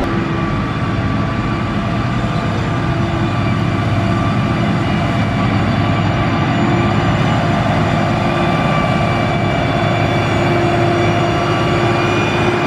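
Heavy construction machine's diesel engine running steadily, with a low rumble and a constant engine tone.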